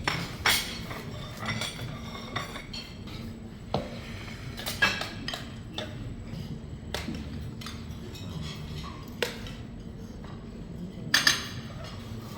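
Cutlery and plates clinking and knocking as food is served and eaten, in scattered separate clinks. The loudest come about half a second in, near five seconds, and as a close pair around eleven seconds, over a steady low hum.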